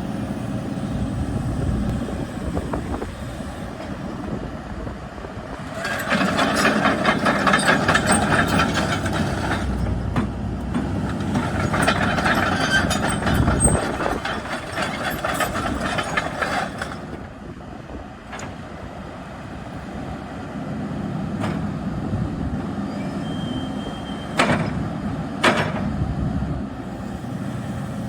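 John Deere 135G hydraulic excavator running, with two louder stretches of working noise lasting several seconds each and two sharp clanks near the end.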